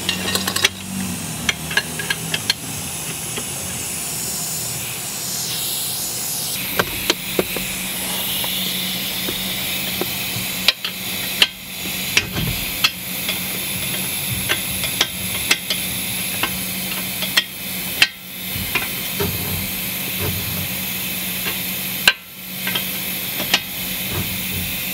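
Ratchet wrench clicking in short irregular runs as a ball-joint nut is tightened, over a steady hiss and low hum.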